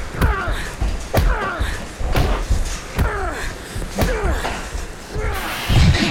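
Fist fight: heavy punches and body blows landing about once a second, six in all, each trailed by a short falling squeak, over the steady rush of pouring water.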